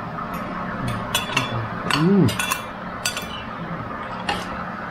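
Cutlery clinking against plates and bowls while eating: a string of sharp, irregular clinks. A brief hum from a voice about two seconds in.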